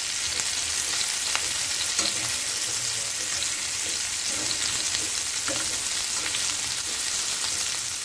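Stuffed bitter gourds sizzling steadily as they shallow-fry in oil in a stainless steel pan, with a few light knocks of a spatula against the pan.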